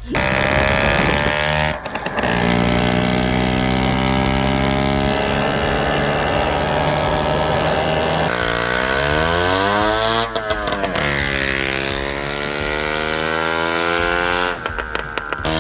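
Motor scooter engine running loudly, steady at first, then revved about two-thirds of the way through, its pitch dipping and climbing again, with a couple of brief breaks in the sound.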